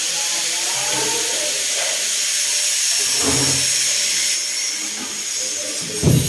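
Power drill running continuously at speed, a steady high whine with hiss; its pitch shifts a little past four seconds in, and a loud knock comes near the end.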